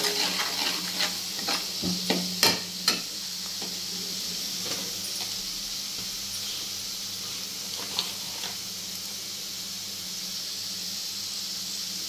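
Onion and spice masala sizzling steadily in oil in a kadhai. A steel ladle scrapes and clinks against the pan several times in the first three seconds, and once more about eight seconds in.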